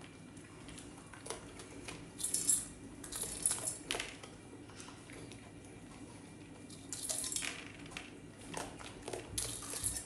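Dry kibble rattling and clinking in a stainless steel bowl as a raccoon eats from it, in several short bursts of clatter and scraping.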